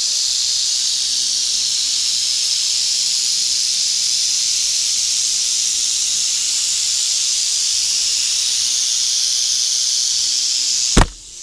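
A mass of rattlesnakes rattling together in their den, a dense, continuous high buzz that holds steady. A single sharp knock near the end.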